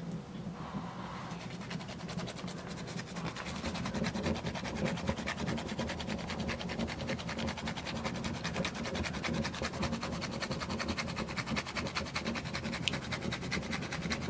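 A whole nutmeg being grated by hand: rapid, even scraping strokes against the grater, getting going a few seconds in.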